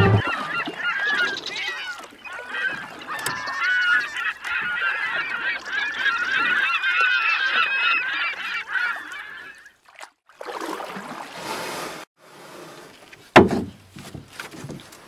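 A dense chorus of many overlapping honking, squawking animal calls for about ten seconds. It breaks off into a short burst of noise, then a single sharp knock near the end.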